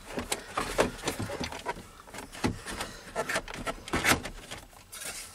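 Plastic instrument cluster and dash trim of a Dodge Ram pickup being worked loose by hand: scattered clicks, knocks and rubbing of plastic, the loudest knock about four seconds in.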